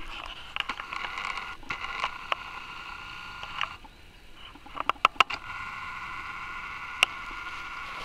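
Footsteps crunching through dry, matted grass and twigs, with scattered sharp snaps and crackles. Under them runs a steady high-pitched hum that breaks off briefly in the middle.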